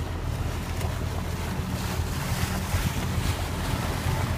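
A boat's engine running steadily, with wind buffeting the microphone and water noise.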